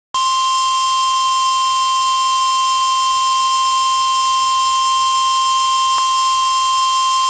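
NOAA Weather Radio 1050 Hz warning alarm tone: one loud, steady, unwavering tone over a light hiss. It signals that a warning broadcast is about to follow.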